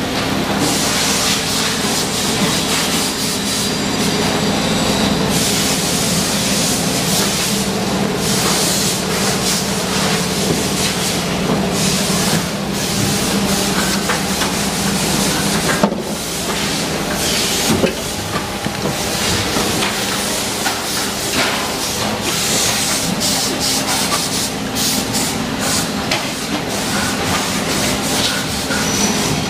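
Plastic injection moulding machinery running with a steady hum and hiss, with a few sharp clacks of hard plastic parts being handled.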